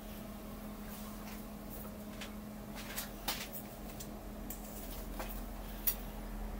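A few sharp metallic clicks and knocks as a steel block is shifted and seated in a milling machine vise, over a steady low hum.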